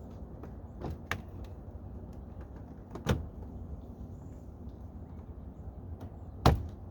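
Plastic door-trim parts being handled and fitted: a few sharp clicks and knocks, the loudest near the end.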